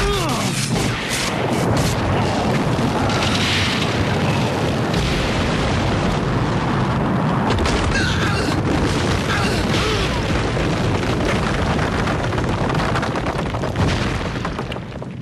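Earthquake and rockfall sound effects: a heavy, continuous rumble with crashing and tumbling rock.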